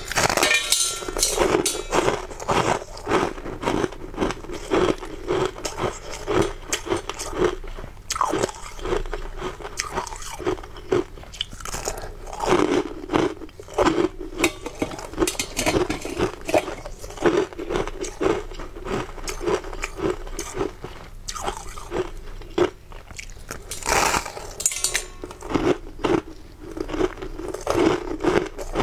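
Biting and chewing of packed shaved ice: crisp crunches, one after another, several a second, with heavier bursts of crunching at the first bite and again near the end.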